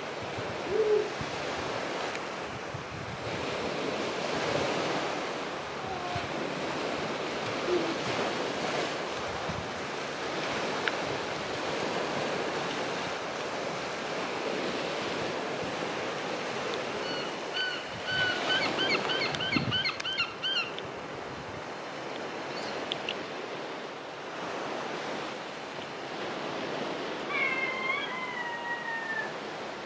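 Sea surf washing steadily on the shore. About two-thirds of the way through comes a quick run of repeated high-pitched animal calls, and near the end a few falling calls.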